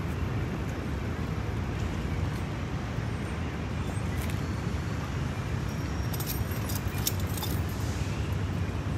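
Steady city road-traffic rumble. A brief run of light, high clicks comes about six seconds in.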